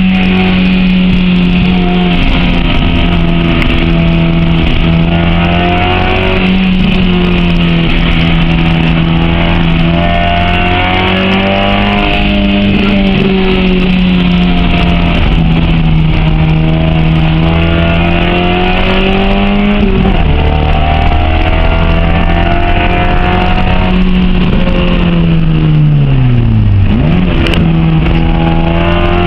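Honda H22A 2.2-litre four-cylinder engine in a Civic coupe, driven hard up a hill climb. The revs rise and fall through the gears, with a quick dip about two-thirds of the way in, then a long drop in revs near the end before they climb again.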